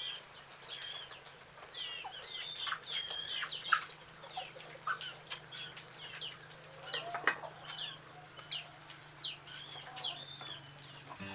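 Birds, likely farmyard chickens or chicks, chirping: a run of short high calls, about two a second in the second half, with a few sharp knocks in between.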